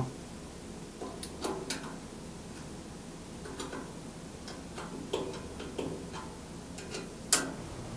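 Light metallic clicks and ticks of a 10 mm wrench and bolt as the upper blade guide assembly is fitted to a band saw's guidepost, coming in irregular little clusters, with one sharper click near the end.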